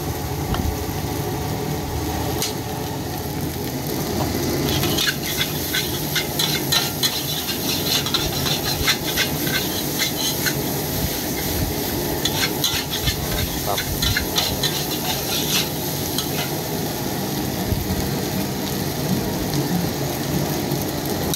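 Fried rice sizzling in a large steel wok while a long-handled steel spatula scrapes and clanks against the pan. The stirring comes in quick runs of strokes, busiest about five to nine seconds in and again about twelve to fifteen seconds in.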